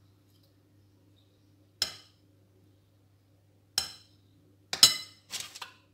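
Metal fork and spoon clinking against a glass bowl while coating a coconut ball in melted chocolate: a single clink about two seconds in, another about four seconds in, then a quick cluster of clinks and a short rattle near the end.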